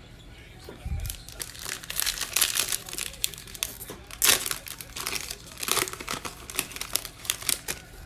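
Plastic trading card pack wrapper being torn open and crinkled, an irregular run of crackles, with a soft thump about a second in.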